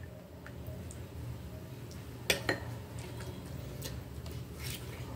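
Metal cutlery clinking against a glass bowl and a plate during a meal: two sharp clinks a little over two seconds in, with a few quieter taps. A faint steady low hum sits underneath.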